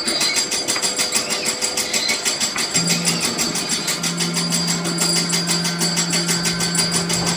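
Free-improvised music from electric guitar, turntable and drums: a dense, fast, even mechanical-sounding pulse, joined about three seconds in by a steady low drone.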